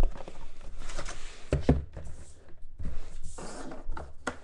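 A sealed box of football trading cards being handled and opened: rustling with scattered taps and knocks on cardboard.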